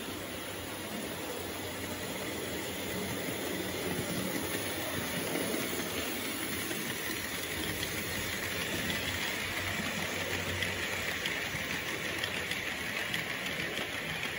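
H0-scale model freight train of silo wagons rolling past on the layout's track: a steady rumble of small metal wheels on the rails with fine clicking, a little louder and brighter in the second half.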